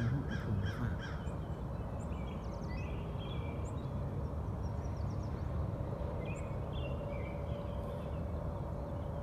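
Birds calling in short scattered chirps and trills over a steady low outdoor rumble.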